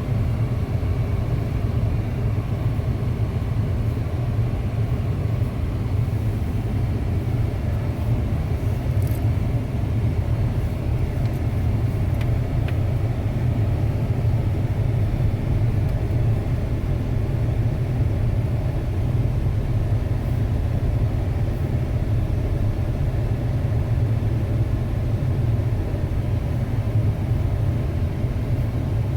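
2006 Ford Expedition driving, a steady low rumble of engine and road noise that holds even throughout.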